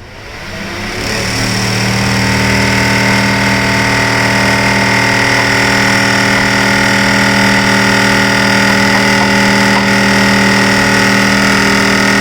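Electric exhaust fan switched on, its motor spinning up over the first second or two and then running with a loud, steady humming drone. The noise is excessive: the fan makes a lot of sound and vibrates even though it is mounted tight.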